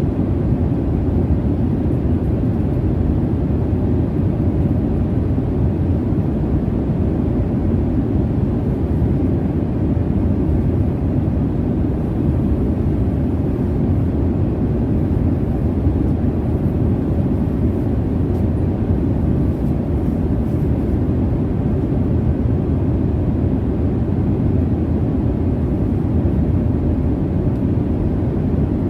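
Steady low rumble of jet engine and airflow noise inside an airliner cabin in cruise, an even deep roar with no changes.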